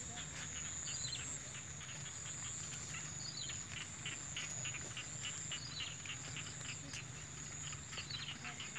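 Field insects chirping and trilling: a steady high-pitched trill with a regular run of short chirps several times a second, and a short call repeating about every two and a half seconds, over a low steady hum.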